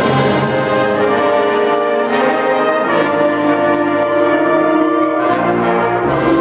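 Concert wind band playing held brass chords, changing chord every second or two with a brighter accent at each change.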